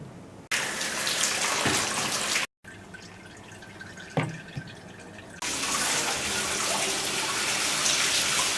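Water running or pouring in two stretches, each starting and stopping abruptly, with a quieter gap between holding a few clicks.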